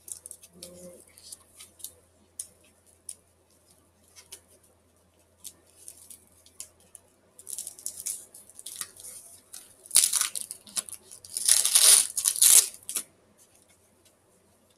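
Packaging being torn open and handled: scattered rustling and crinkling, then louder tearing about ten seconds in and again in a longer stretch a second later.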